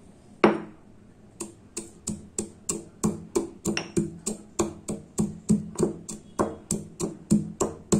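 Stone pestle pounding chopped ginger and cumin seeds in a stone mortar: one strike about half a second in, then steady strikes about three a second, each a dull knock with a short ring.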